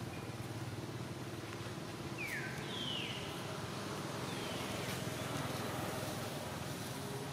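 Steady low hum of a distant motor vehicle's engine, with a few short, high sweeping calls a little over two seconds in and once more a couple of seconds later.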